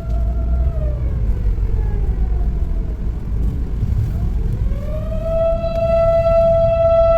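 A wailing siren: its pitch falls slowly about a second in, stays low, then rises again about four seconds in and holds a steady high note, over a constant low rumble.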